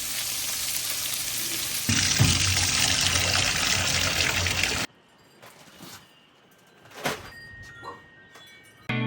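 Meatballs sizzling in a frying pan, a steady hiss that gets louder about two seconds in and cuts off suddenly about five seconds in. After that, faint wind chimes ringing.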